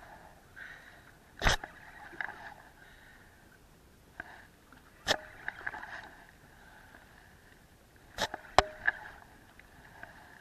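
Faint handling rustle with four sharp knocks, spread out and two close together near the end, from fishing gear being handled with gloved hands on a boat: a spinning rod and reel and a landing net.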